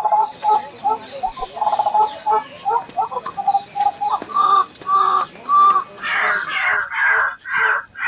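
White-breasted waterhen calling: a run of short clucking notes, then from about six seconds in louder, harsher croaks repeated about twice a second.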